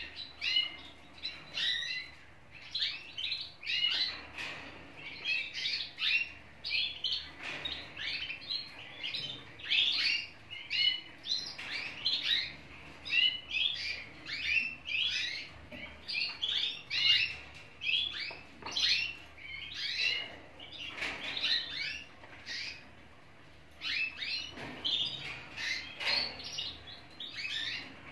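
Many caged domestic canaries chirping and calling, short bright chirps and trills overlapping one another, with a brief lull about three-quarters of the way through.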